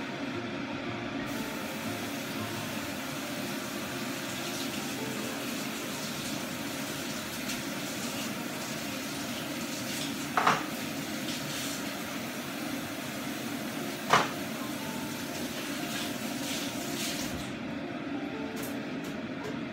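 Kitchen tap running into a sink as a steady hiss that starts about a second in and stops near the end, with two sharp clanks of dishes or utensils in the sink about halfway through. A steady low hum runs underneath.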